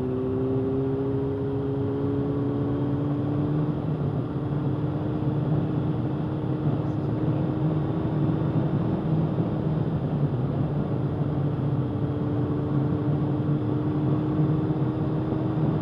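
Honda CBR600F4i's 599 cc inline-four engine pulling steadily in a higher gear just after an upshift, its pitch rising gently for the first few seconds and then holding level. Wind noise rushes over the microphone throughout.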